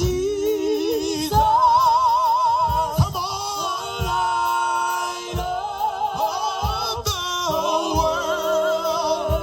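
Gospel band playing: organ holding sustained, wavering chords over bass guitar and drum hits.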